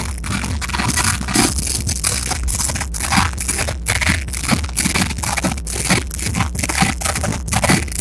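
Loud dance music from a street loudspeaker, heavily distorted and clipping, with a regular beat.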